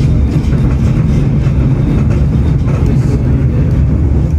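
Running noise of the Western Train tram heard from on board: a steady, loud low rumble with faint rattles over it.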